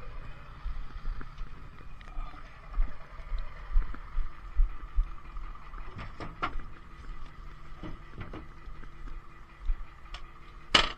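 A vehicle engine idling with a steady hum, under irregular low thumps from movement. A sharp clack comes near the end.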